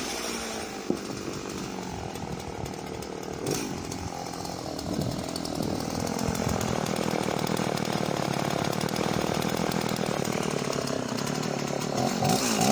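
Husqvarna Rancher 50 two-stroke chainsaw running at a steady low speed, with a sharp click about a second in.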